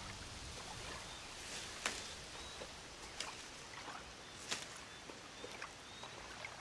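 Leaves being plucked by hand from a leafy plant: several crisp, separate snaps with light rustling, over quiet outdoor ambience with faint high chirps.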